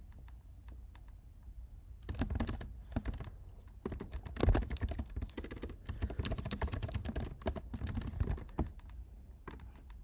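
Fast typing on a computer keyboard: a few light keystrokes at first, then a dense, rapid run of key presses from about two seconds in, thinning to a few separate clicks near the end.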